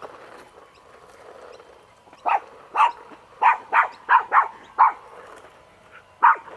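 Small fluffy dog barking in short barks at the RC car it is chasing: a quick run of about seven beginning about two seconds in, a pause, then another bark near the end.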